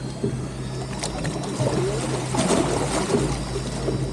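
A boat's engine running steadily, with a wash of water and wind noise and a sharp click about a second in.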